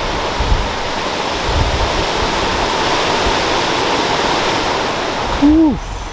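Hurricane wind and rain as a loud, steady rushing noise. Near the end there is a brief falling tone, and the hiss drops off suddenly.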